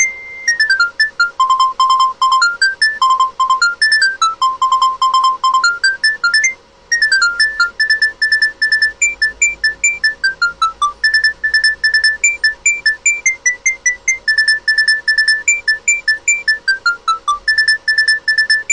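An old monophonic Nokia mobile-phone ringtone playing a fast melody of short beeping notes, one note at a time, with a brief break about six and a half seconds in.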